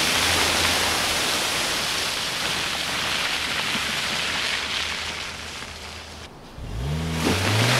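Suzuki SX4 1.6 VVT four-cylinder petrol engine pulling the car through wet mud in 4x4 lock mode, its tyres spinning and throwing up mud with a steady hissing spray. Near the end the engine revs rise and fall.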